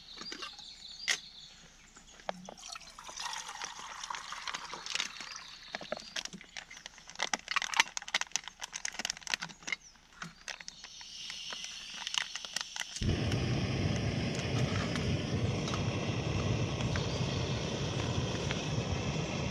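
Scattered clicks and handling knocks, then about 13 seconds in a camping gas stove burner lights and runs with a steady hiss under a kettle as water is put on to boil.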